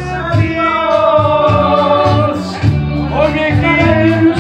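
Loud amplified party music: a male singer over a bass line of held notes that change every half second or so.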